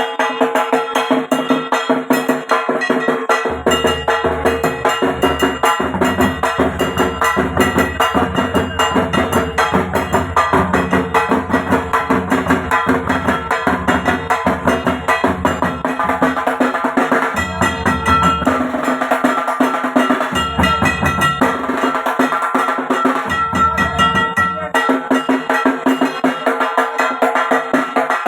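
Bengali dhak drums beaten rapidly with wooden sticks in a fast, steady rhythm. A deep low booming comes in a few seconds in and drops out in several short breaks near the end.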